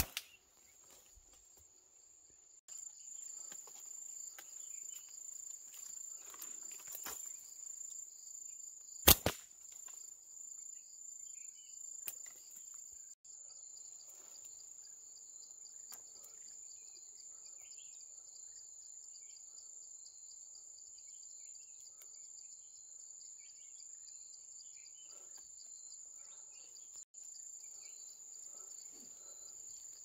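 Steady high-pitched chorus of insects, coming in about three seconds in. A single sharp crack about nine seconds in is the loudest sound, with a fainter click near twelve seconds.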